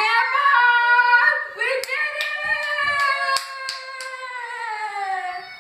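A quick run of hand claps, about three a second, over a high child's voice holding one long drawn-out note that slowly falls in pitch.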